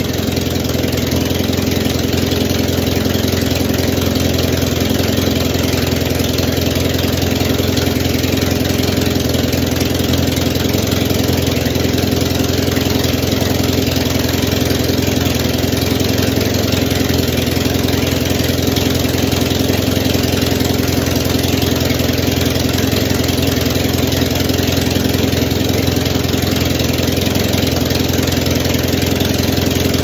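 Audi 2.0T turbocharged four-cylinder engine idling steadily at an even, unchanging speed.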